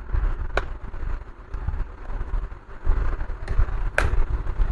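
Two sharp clicks, about half a second in and about four seconds in, over a low rumble: handling noise from the plastic laptop case and its broken hinge parts.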